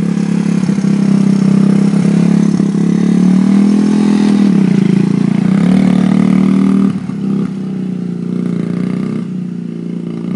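1986 Suzuki LT250E quad's single-cylinder four-stroke engine running through a cherry bomb exhaust, with the revs dipping and rising as it pulls away. About seven seconds in it drops quieter as the quad moves off.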